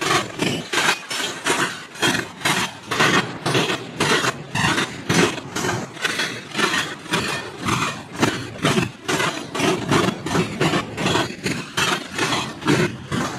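Double-stack container train rolling past, its steel wheels clattering over rail joints in a steady run of sharp knocks, several a second.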